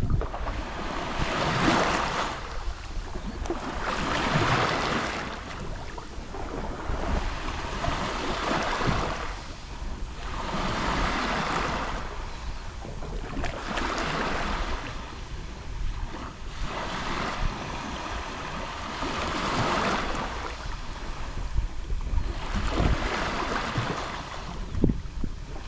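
Gentle Mediterranean sea waves lapping on the shore, each wave swelling and washing back every two to three seconds. A low rumble of wind on the microphone runs beneath.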